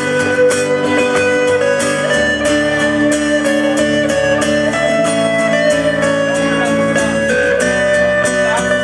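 Live acoustic-duo music: an instrumental guitar passage with steadily picked notes and held chords, with no singing.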